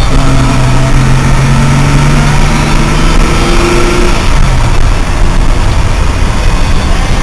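Old Mercedes sedan's engine running as the car is driven, over a steady rushing noise. The engine note holds steady, then drops and fades about four seconds in.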